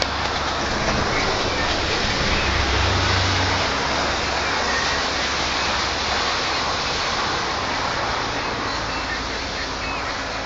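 Steady rain falling, a constant hiss, with a low rumble underneath that fades after about six seconds.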